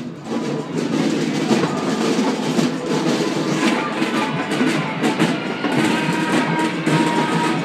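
Marching band playing in the street below, drums keeping a steady beat with brass coming in; it grows louder within the first second.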